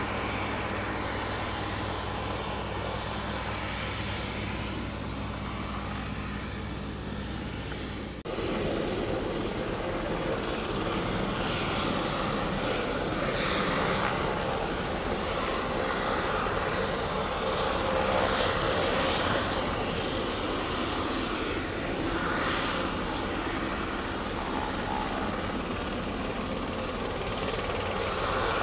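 Aerospatiale AS350B Ecureuil helicopter's turboshaft engine and main rotor running on the ground, a steady turbine and rotor sound. About eight seconds in the sound changes abruptly to a louder, rougher rotor noise that swells and fades.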